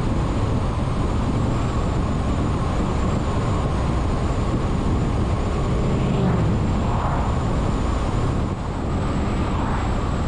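A vehicle driving at highway speed: steady road noise of tyres and engine.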